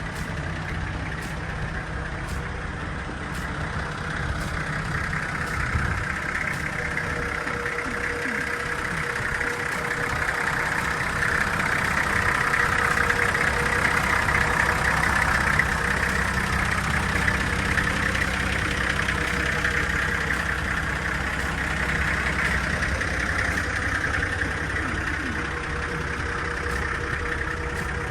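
Nissan Safari's TD42 six-cylinder diesel engine idling steadily.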